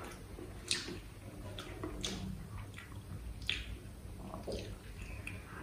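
Close-miked eating sounds: wet chewing and mouth smacks with a few sharp clicks, while a fried puri is torn apart by hand and used to scoop up sabzi.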